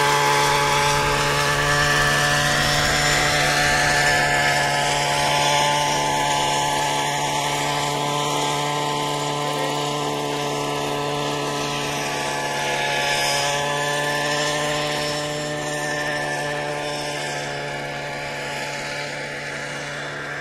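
Radio-controlled scale model Bell 47 helicopter in flight, its engine and rotor running at a steady pitch. It grows gradually fainter toward the end as it flies off.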